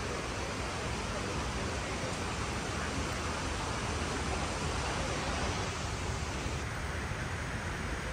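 Steady rushing noise of falling water, the kind made by the World Trade Center memorial's waterfall pools, with no distinct events. A faint high whine joins it near the end.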